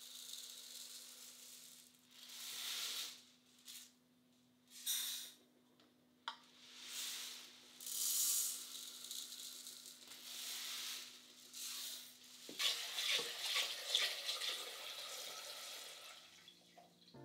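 Dry rice grains poured in several short swishing pours from a plastic storage container into a plastic measuring cup, with a sharp click about six seconds in. From about twelve seconds, a kitchen tap runs water into a stainless steel pressure-cooker pot.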